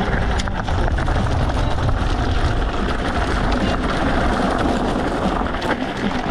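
Steady rushing noise with a heavy low rumble, as of wind on the microphone and road noise while riding an e-bike.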